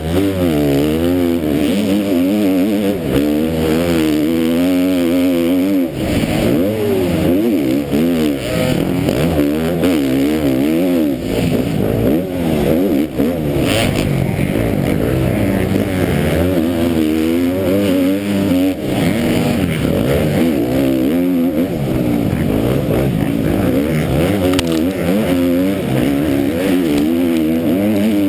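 KTM MX2 motocross bike's engine under race throttle, heard from the rider's helmet: the revs rise and fall over and over as he opens and shuts the throttle through turns and up a hill. A single sharp knock comes about halfway through.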